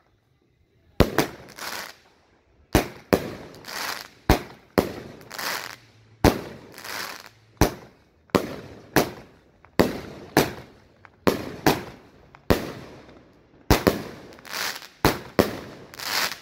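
A 200-gram consumer firework cake fires shot after shot, starting about a second in. It makes a rapid string of sharp bangs, one to two a second and sometimes in quick pairs, each trailing off in a crackling, fading burst.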